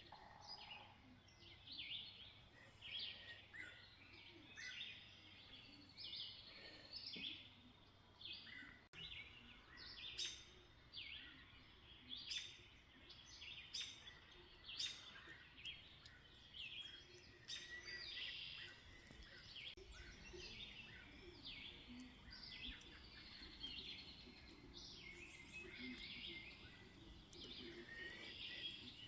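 Faint chorus of songbirds chirping and singing outdoors, with many short, high calls overlapping one another.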